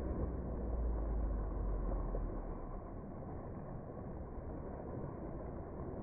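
Steady rumble of wind on the microphone over the wash of the sea, heaviest in the first couple of seconds and then easing.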